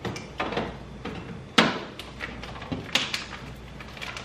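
Bottles and jars being moved about in a refrigerator's door shelves: a series of short knocks and clinks, the loudest a sharp knock about a second and a half in.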